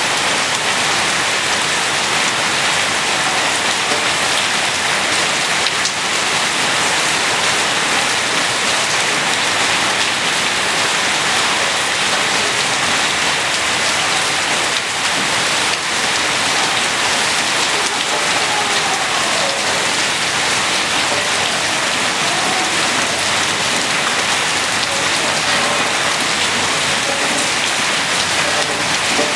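Steady rain falling and pattering on surfaces, an even hiss that does not let up.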